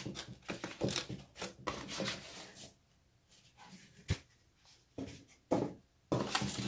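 Hands rummaging in a cardboard box and handling packaging: a string of short rustles and scrapes, with one sharp tap about four seconds in and a busier burst of rustling near the end.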